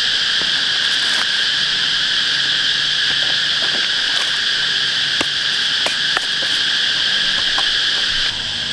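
Steady chorus of insects, a continuous high-pitched drone, with scattered small sharp clicks and taps; it eases slightly just before the end.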